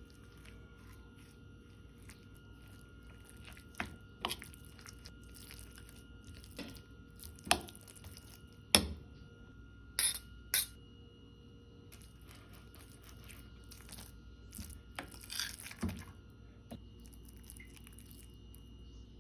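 Scattered knocks and clicks of kitchen utensils and dishes being handled, loudest in a cluster in the middle, over a faint steady hum.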